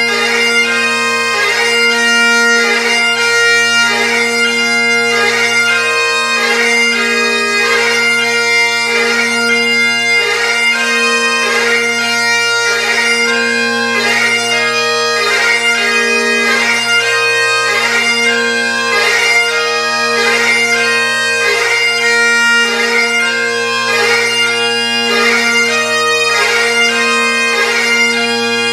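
Three Great Highland bagpipes playing a lament together in harmony, their drones sounding one steady unbroken tone beneath the chanter melody.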